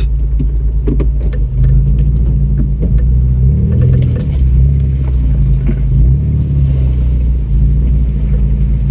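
Off-road vehicle's engine running at low speed as it crawls over a rutted dirt trail, pulling a little harder a couple of times, with scattered small knocks and creaks.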